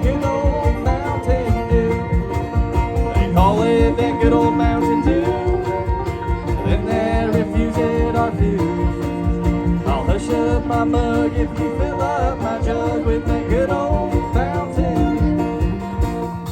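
Bluegrass string band playing an instrumental break: banjo and guitar over a steady percussion beat, with a lead melody bending in pitch above them.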